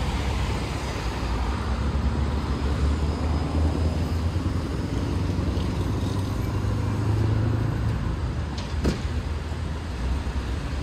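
Road traffic: a steady low rumble of engines and tyres from passing cars and a city bus. Two short clicks come near the end.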